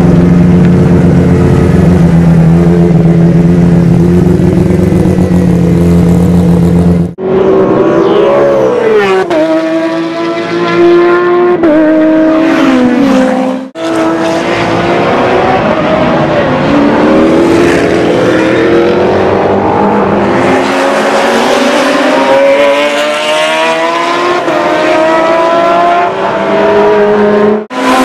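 Porsche 911 GT1's twin-turbo 3.2 L flat-six running steadily up close. After a cut, race car engines accelerate around a circuit, their pitch climbing through the gears and dropping at each shift, with several cars passing.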